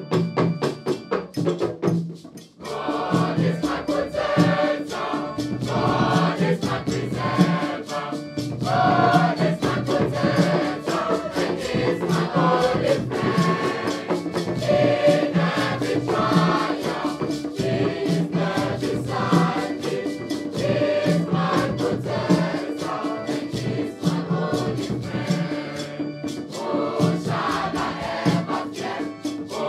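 Mixed-voice choir singing in several parts, with a rattle-like percussion keeping time. A short percussive opening with steady instrumental tones breaks off about two seconds in, and the choir comes in about half a second later.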